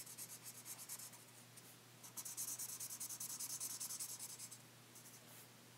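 Marker tip rubbing quickly back and forth on paper, colouring in. The faint, rapid scratchy strokes come in two spells and stop about a second before the end.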